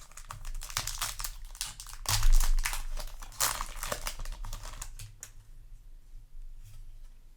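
Foil Yu-Gi-Oh! booster pack wrapper crinkling and tearing as it is opened and handled. It is a dense run of crackles, loudest about two seconds in, that thins out after about five seconds.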